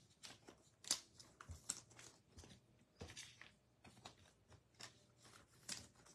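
Faint handling of baseball trading cards: cards sliding, being shuffled and set down on a table, with irregular light taps and brief rustles.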